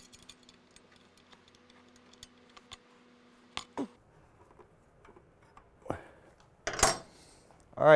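Faint scattered clicks and ticks of bolts and metal hardware being threaded in by hand on a motorcycle engine protection bar mount, under a faint steady hum that stops about four seconds in. A couple of louder short rustling knocks come near the end.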